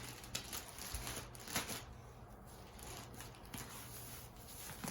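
Soft rustling and crinkling of the wrapping as a handbag is unwrapped by hand, with scattered small clicks and one sharper rustle about a second and a half in.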